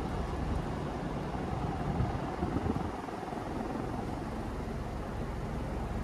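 1980s Leslie Locke (Evergo/Union) ceiling fan running on high: a steady rush of moving air with a low rumble.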